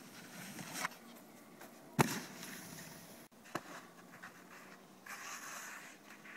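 Snowboard sliding and scraping over snow, with a sharp knock about two seconds in, a smaller click shortly after, and a short louder scraping hiss near the end.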